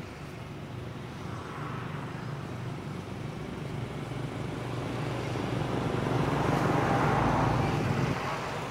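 A motor vehicle's engine hum passing by, swelling louder through the middle, then falling away abruptly near the end.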